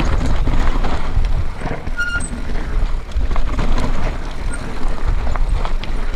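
Mountain bike riding down a loose, rocky trail: tyres crunching over stones and the bike rattling, with a brief high squeal about two seconds in.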